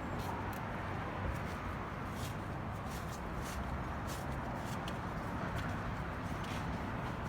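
Steady low background rumble with a few faint clicks and light handling noises.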